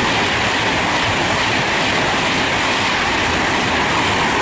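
Class 390 Pendolino electric train passing close at speed without stopping: a steady, loud noise of wheels on rail and rushing air.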